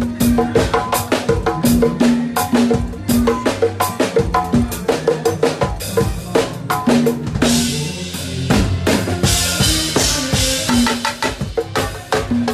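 Congas played by hand live with a band's drum kit: a fast, steady groove of open conga tones and slaps over kick and snare. A bright hissing wash rises for a couple of seconds just past the middle.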